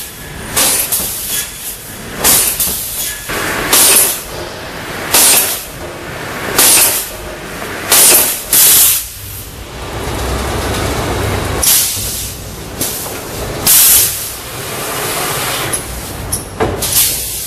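Bottene Push 180 XL board cross-cut saw at work: short, sharp bursts of noise come irregularly every one to two seconds over a steady machine run, with a longer, heavier stretch of noise around the middle.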